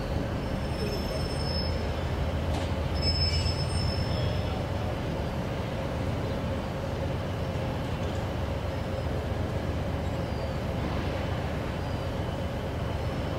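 A train running on the rails, with a steady rumble and hum. Short, high wheel squeals come in the first few seconds.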